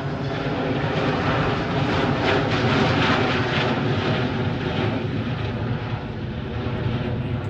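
Bombardier Global 8000 business jet's twin turbofans in a display flypast. The jet noise builds to a peak about two to three seconds in, then eases slightly.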